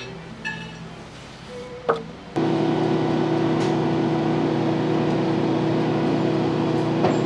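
Faint music with a sharp click, then, about two and a half seconds in, a loud, steady machine hum with several fixed pitches starts abruptly, like an engine or motor running.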